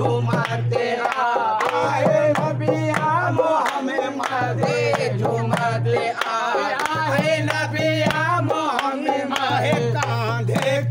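A group of men singing a Sufi devotional song together, with hand claps and drum beats keeping time.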